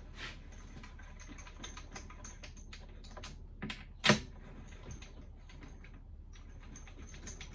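Irregular light clicks and taps of small parts being handled and fitted, with one sharper knock about four seconds in.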